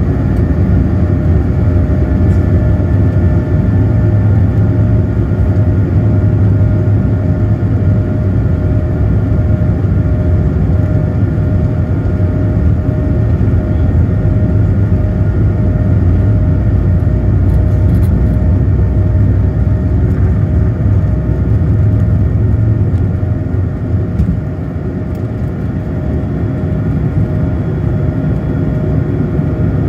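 Airliner jet engines at takeoff thrust heard from inside the cabin, a steady loud rumble with a steady engine whine, with the landing gear rumbling over the runway. The low rumble eases about three-quarters of the way through as the aircraft lifts off and climbs.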